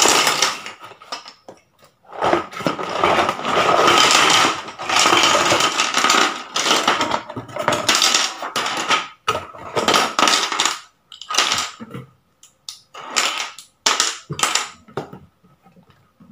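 Plastic building blocks and marble-run pieces tipped out of a cardboard box onto a table: a long loud clattering rush of pieces, then a series of shorter clatters as the box is shaken out and the pieces settle.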